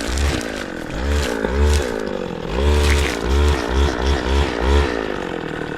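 Small petrol engine revved up and down in quick, irregular surges, its pitch rising and falling two or three times a second, with a short lull partway through.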